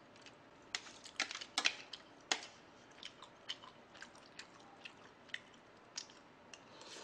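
Close-miked eating sounds of a person chewing pork-bone stew (gamjatang), with scattered sharp clicks and smacks, the strongest in the first two and a half seconds.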